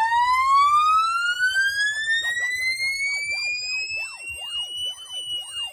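Siren sound effect played through a DJ sound system: one long tone sweeping steadily upward in pitch, levelling off and falling slightly near the end, with fainter warbling sweeps crossing beneath it.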